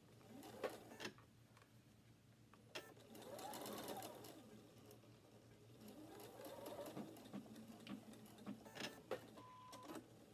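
Electric sewing machine stitching a seam in two short runs, each time the motor speeding up and then slowing down, with scattered clicks between. A short beep near the end.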